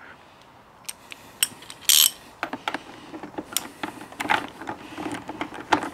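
A wrench working the high-speed compression adjuster bolt on a WP XACT rear shock, screwing it in toward its stop. It gives scattered, irregular metal clicks.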